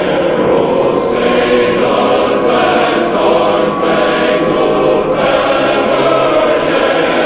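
A choir singing long held notes, with several short bursts of hiss along the way.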